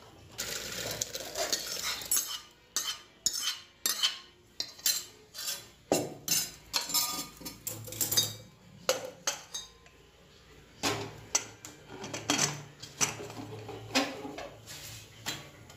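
A steel ladle and aluminium pots clinking, knocking and scraping as gravy is ladled from a kadai into a pressure cooker and the cooker's lid is handled, many sharp separate clinks with a quieter pause partway through.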